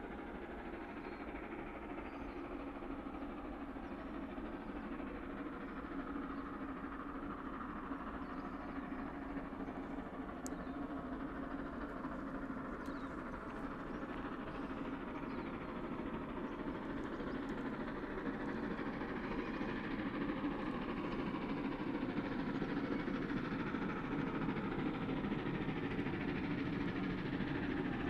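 Distant excursion train hauled by a JA-class steam locomotive and two DA-class diesel locomotives, approaching with a steady engine rumble that grows gradually louder.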